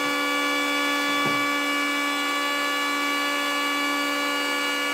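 Electric hand planer, mounted upside down in a bench jig, running steadily at full speed with no wood passing over the cutter: a constant high motor-and-cutterhead whine.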